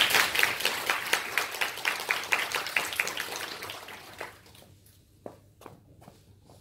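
Audience applauding, dense at first and dying away over about four seconds, with a few last single claps near the end.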